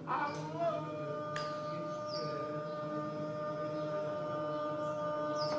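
A man's voice chanting a Quran recitation, holding one long steady note after a short upward slide at the start.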